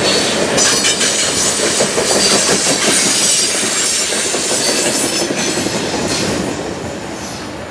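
Freight train's steel wheels rolling and clattering over the rails, with a high wheel squeal, as the last ballast cars go by. The sound fades away over the last couple of seconds as the tail end passes.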